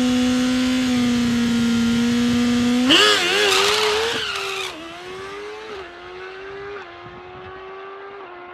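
Suzuki GSX-R1000R inline-four held at steady high revs on the drag strip start line. About three seconds in it launches, the engine pitch wobbling as the rear tyre spins. It then pulls away down the strip, shifting up through the gears and fading into the distance.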